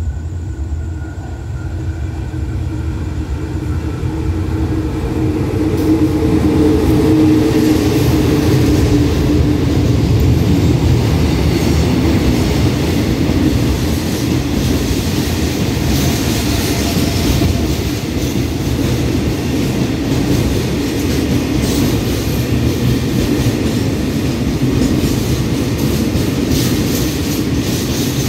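A freight train hauled by a GEA-class diesel-electric locomotive arrives and passes, growing louder over the first six seconds. A long string of tank wagons then rolls steadily past, with the wheels clicking over the rail joints.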